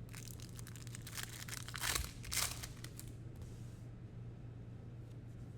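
Foil wrapper of a trading-card pack crinkling and tearing open in several crackly bursts, the loudest about two seconds in, over a steady low hum.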